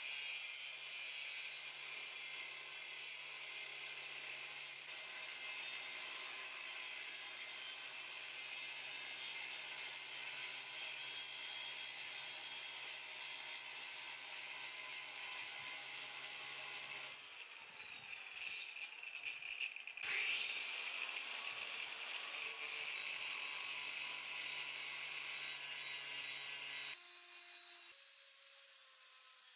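Angle grinder with a small-diameter Suhner cutoff disc, run at its highest speed, cutting the gates off a cast muller plow: a steady high grinding hiss. It drops away for a few seconds partway through, then comes back with a quickly rising whine as the disc spins up again.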